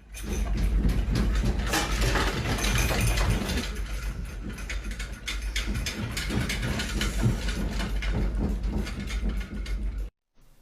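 Earthquake shaking: a steady deep rumble under continuous rattling and clattering of loose objects, which cuts off suddenly near the end.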